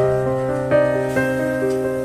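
Background music: a soft piano melody, notes struck one after another over a held low bass note.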